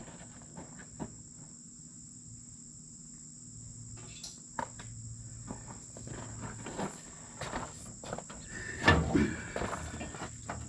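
Scattered clicks and knocks of tools and metal parts being handled, with the loudest knock about nine seconds in, over a steady high cricket chirring.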